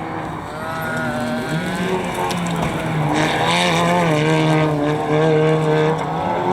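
Competition vehicle's engine on a dirt slalom course, revving with a pitch that wavers up and down and growing louder as it comes closer, with a burst of hiss about three seconds in.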